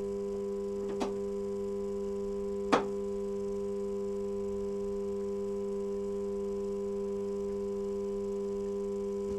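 A steady, unbroken electronic bleep tone, dubbed over swearing. Two knocks sound through it, about a second in and just under three seconds in; the second is the louder.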